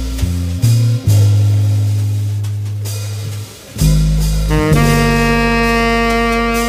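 Small jazz group playing: deep bass notes that change every second or so, with drums, and a long held melody note entering about halfway through.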